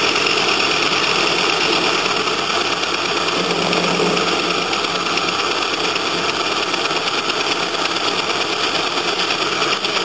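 JMD-1 benchtop milling machine running steadily while its end mill faces a flat onto the top of a duralumin ball.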